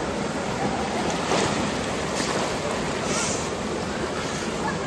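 Waterfall: the steady rushing noise of falling water.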